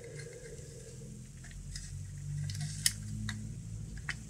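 A handful of small sharp clicks and taps from handling the opened radiometer and its parts, the loudest a little before the middle, over a low steady hum.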